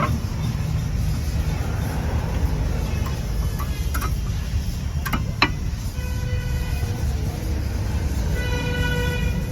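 A steady low rumble with a few sharp clicks around the middle, then a horn sounding twice, the second time just before the end.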